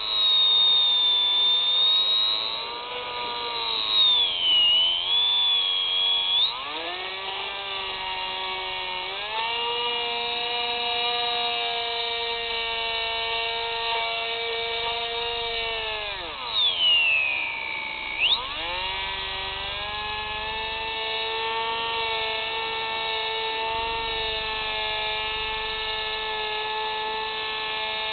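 Electric motor and propeller of an FPV model aircraft whining close to the onboard camera. The pitch drops and climbs back as the throttle changes, most sharply a little after halfway, then holds steady.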